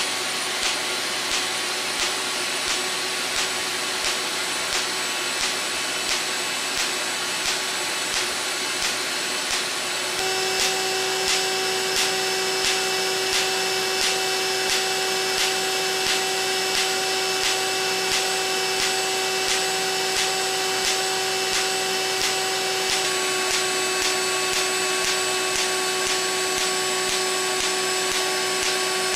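Smoke evacuator suction running with a steady rushing hiss and whine, under a regular train of clicks from the LightPod Era laser handpiece firing its pulses during ablative skin resurfacing.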